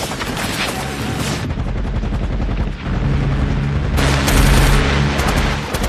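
Film battle soundtrack of automatic gunfire: a rapid volley of shots, then a low steady drone. About four seconds in comes a louder, continuous roar of rapid fire that lasts nearly two seconds.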